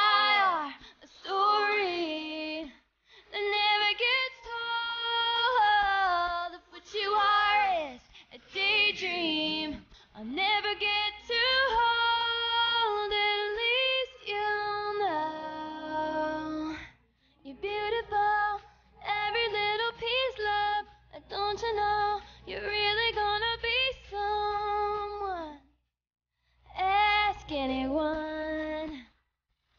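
A female voice singing a pop song's melody in phrases with long held notes and short pauses, over faint accompaniment.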